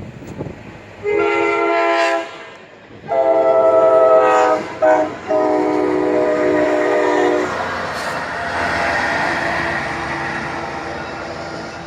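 Tri-Rail commuter train's locomotive horn sounding four blasts, long, long, short, long: the standard grade-crossing signal. The train then runs past with a steady rushing rumble of wheels on rails that slowly fades.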